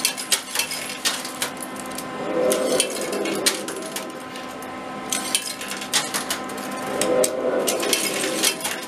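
Coins clinking and clattering in an arcade coin pusher machine, with many small sharp clicks and two longer stretches of rattling about two and seven seconds in, over a steady machine hum.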